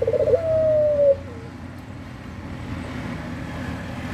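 Puter dove cooing eagerly in breeding mood: a short rolling trill runs straight into one long held note that sinks slightly, all within the first second and a half. After that only a steady low background rumble remains.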